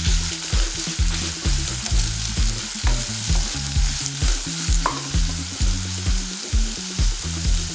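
Finely chopped onion sizzling in hot oil and butter in a non-stick kadai while a wooden spatula stirs it: the onion is frying toward light brown. A low, even pulse about twice a second runs underneath the steady sizzle.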